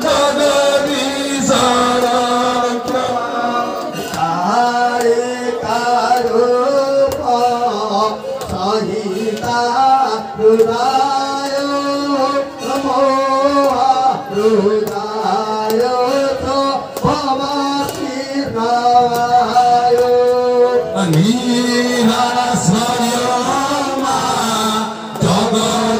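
A man singing a devotional chant-like song into a microphone: a single voice holding long notes that bend up and down, with only brief breaks between phrases.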